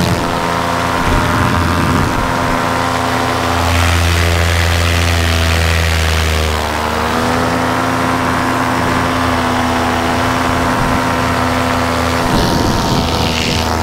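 Paramotor's Vittorazi Moster 185 single-cylinder two-stroke engine and propeller running steadily in flight. The engine note dips briefly about halfway through, then settles again.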